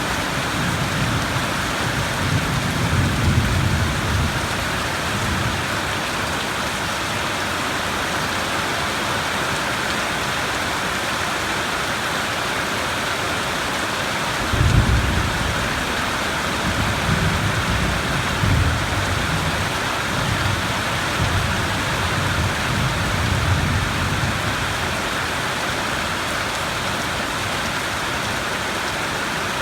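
Steady heavy rain with thunder rumbling: low rolls in the first few seconds, a sudden louder clap about halfway through, then more rolling rumbles.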